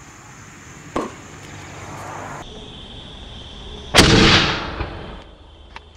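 A single loud bang by the homemade soup-can tennis ball cannon about four seconds in, with about a second of rushing noise trailing after it; a sharper, shorter knock about a second in.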